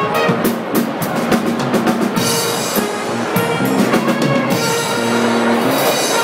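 Live jazz-funk combo playing: drum kit with a heavy cymbal wash over the middle stretch, electric bass, and trumpet and saxophone holding notes together.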